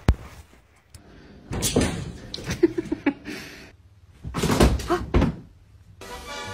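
A few thumps and knocks, one sharp at the start and two longer noisy bursts later.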